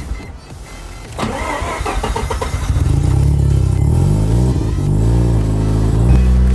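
Mazda RX-7 FD's twin-rotor rotary engine cold-starting: it cranks unevenly, catches a little under three seconds in and runs rough with a wavering pitch, then settles about six seconds in into a steady, louder fast idle. It is running on premix, which smokes heavily until the engine is warm.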